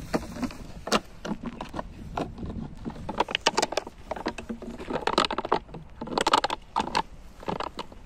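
An empty plastic water bottle crackling and crinkling in a German Shepherd's jaws as it bites and chews it, in irregular clusters of sharp crackles.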